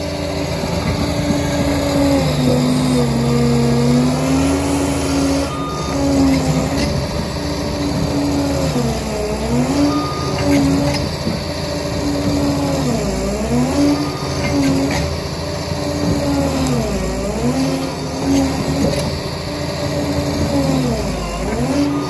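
Liebherr 746 crawler dozer running under work, with a steady loud whine over a low rumble. The whine dips in pitch and comes back up five times, roughly every four seconds.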